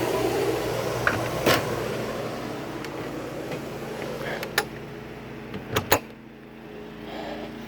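Travel-trailer air conditioner blowing with its fan on high, powered by a Predator inverter generator running steadily under load, its hum faint beneath the rush of air. A few sharp clicks and knocks sound through it. About six seconds in the rushing air falls away, leaving mainly the generator's steady hum.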